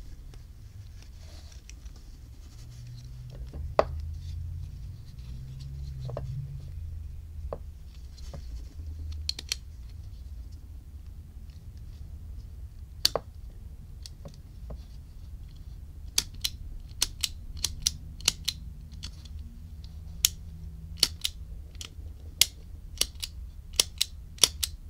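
Sharp metallic clicks of a vintage Ronson Triumph automatic petrol lighter's action being worked by hand: a few scattered clicks at first, then a quicker irregular run of about two a second in the second half. The mechanism is being cycled to groove the flint, and it feels gummy and does not yet spark.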